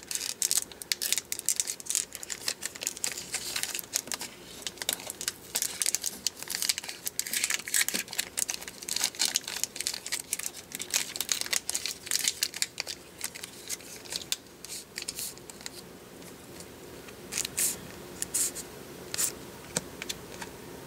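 Trading-card pack wrapper being opened and crinkled by hand, with the cards shuffled out of it. The crackling is dense for the first dozen seconds or so, then drops to a few scattered crinkles.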